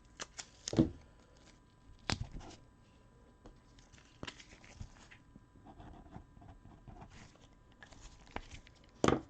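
Trading cards and plastic sleeves being handled on a tabletop: scattered sharp clicks and taps with faint rustling in between, the loudest taps about a second in, at two seconds, past four seconds and just before the end.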